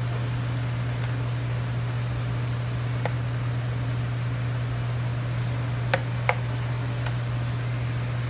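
A steady low mechanical hum, with a few light clicks from a knife working through a raw chicken on a plastic cutting board; two sharper clicks come close together about six seconds in.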